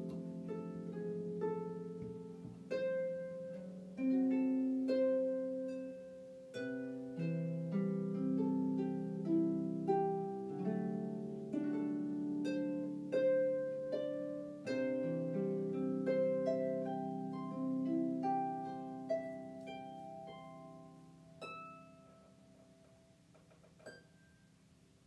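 Background music: a gentle instrumental piece of plucked-string notes that strike and ring down, fading out over the last few seconds.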